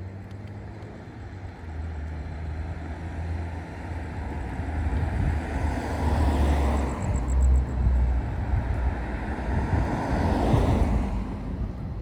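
Wind rushing over the microphone and tyre rumble from an electric unicycle riding fast downhill. The rush builds, is loudest through the second half, and eases off near the end.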